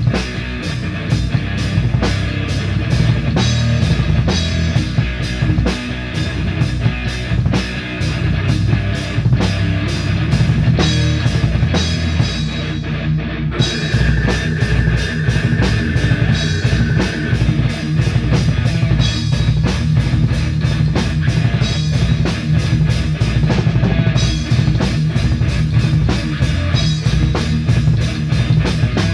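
A rock band playing live on drum kit and electric guitars, with steady, dense drumming throughout. A high note is held for about three seconds midway.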